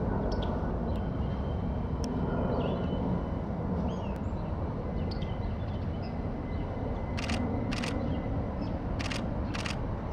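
Steady low outdoor rumble with faint, scattered high bird chirps; in the last few seconds a camera shutter clicks four times, in two pairs.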